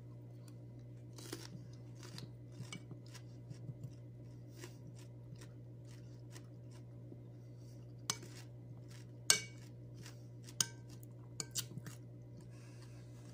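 Crunchy chewing of raw cucumber slices, with a metal spoon clinking against the bowl several times in the second half, the sharpest about nine seconds in. A steady low hum runs underneath.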